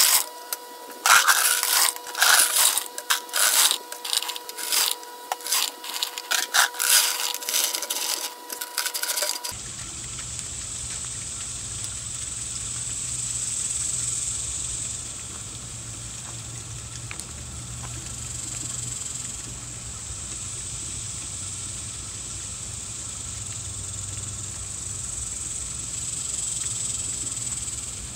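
Small rocks clattering and scraping as they are poured into a wooden half-barrel bucket, a rapid run of knocks lasting about nine seconds. It then gives way suddenly to the propane flaming fountain running: a steady high hiss over a low hum.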